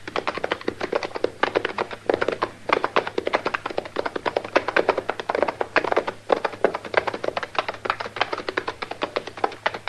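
Radio sound effect of two horses ridden at a steady pace: a quick, continuous clatter of hoofbeats, several strikes a second.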